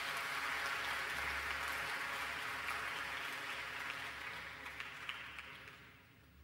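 Audience applauding, steady at first and then dying away near the end.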